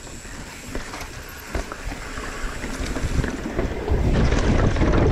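Wind buffeting the camera microphone and the mountain bike's tyres rumbling over the trail, with scattered knocks and rattles from the bike over rocks and roots. The rumble gets louder about four seconds in as the bike drops down a steep rocky chute and picks up speed.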